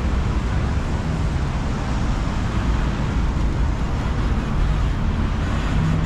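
Steady city street noise, mostly a continuous low rumble of road traffic.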